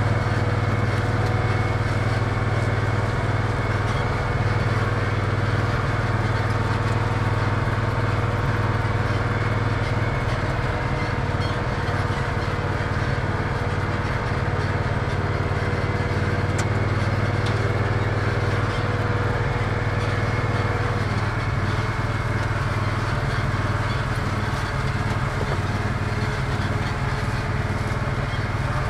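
Engine of a small off-road utility vehicle running at a steady speed while riding, a constant low drone with a thin higher whine that drops away about two-thirds of the way through.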